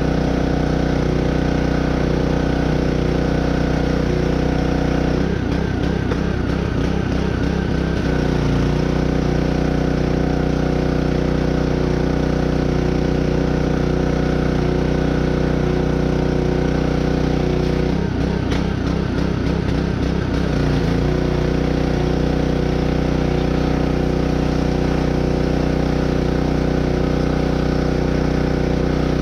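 An engine running steadily at idle, with a slight unsteady change in its note twice, around five seconds in and again near the middle.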